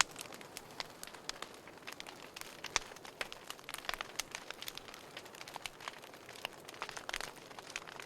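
Wood fire crackling in a fireplace: irregular snaps and pops over a soft hiss, with one louder pop a little under three seconds in.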